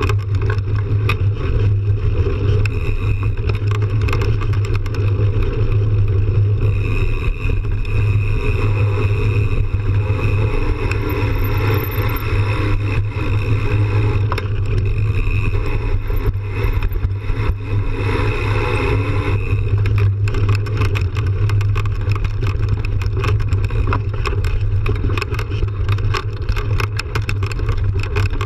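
Mountain bike ridden fast on a dirt trail, heard from a camera mounted on the bike: a steady low rumble of wind on the microphone with the tyre rolling over dirt, and frequent small rattles and knocks from the bumps.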